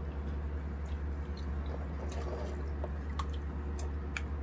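Light, scattered clicks and clinks of eating utensils and tableware during a meal, over a steady low hum.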